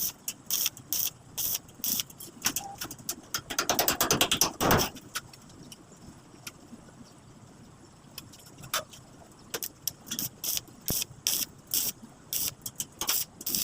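A run of irregular sharp clicks and taps, bunched most densely about four seconds in.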